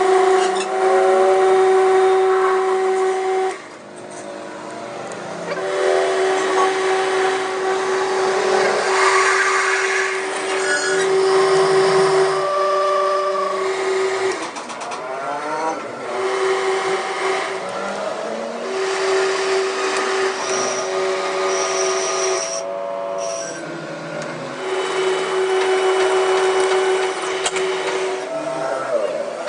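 An electric power tool motor running in spells of several seconds with a steady hum, stopping and starting again between them, along with workshop noise.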